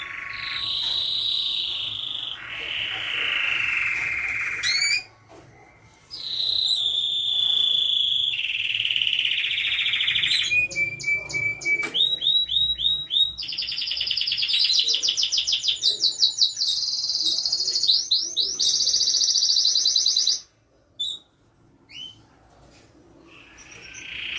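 Domestic canary singing a long, varied song of rolls and rapid trills, the phrases changing every second or two, with short pauses about five seconds in and again near the end.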